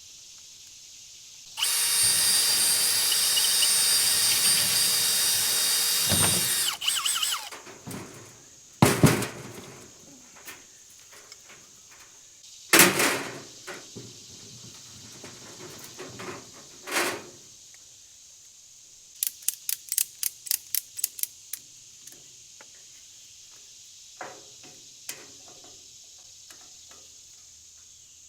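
A power drill runs steadily for about five seconds, then a few separate knocks follow, and a quick run of about ten clicks comes about two-thirds of the way in.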